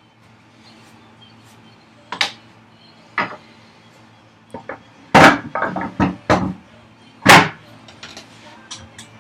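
Hard wooden knocks and clunks as a workbench vise chop is knocked loose and lifted off its guide rods: single knocks about two and three seconds in, a loud run of knocks and clatter around the middle, and one more loud knock near the end.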